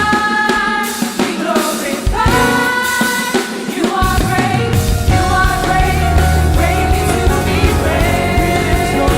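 Live gospel praise-and-worship music: singers with a band. The bass and low end drop out for the first few seconds, then the full band comes back in about four seconds in.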